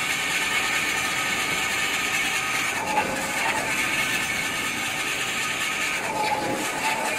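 Band-saw toilet paper and kitchen towel roll cutting machine running steadily, its blade cutting through a paper towel log. A brief higher tone rises out of the running noise about three seconds in and again just after six seconds.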